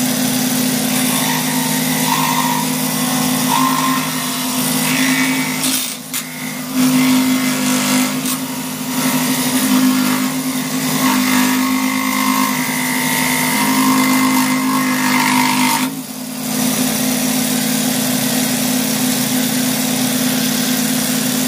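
Scroll saw running and cutting a mulberry wood spoon blank, a steady mechanical hum with sawing noise. The sound dips briefly twice.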